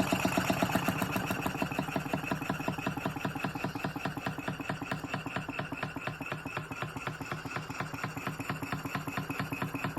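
Willcox & Gibbs chain stitch sewing machine running under power from a Sipp 1/4 HP steam engine: a rapid, even clatter of stitch strokes that grows gradually quieter.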